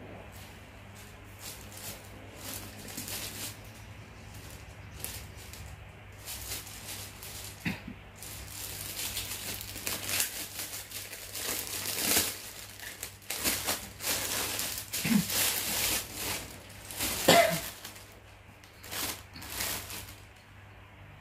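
Plastic parcel packaging crinkling and rustling as it is handled, in irregular bursts that grow busier and louder through the second half.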